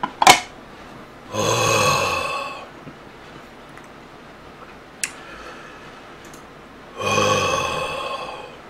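A sharp knock of a heavy stone pot on the table just after the start, then a man's two long voiced sighs, each about a second and a half and slowly falling, with a faint click in between.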